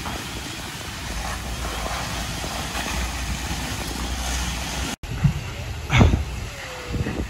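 Steady low rumble and rushing noise at a large structure fire, where hose streams spray water onto the burning building. After a sudden cut about five seconds in, several loud thumps follow.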